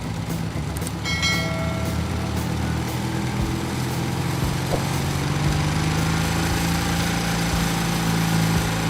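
Heavy machine's diesel engine running steadily, its note rising somewhat about halfway through and holding there, with a brief high-pitched tone about a second in.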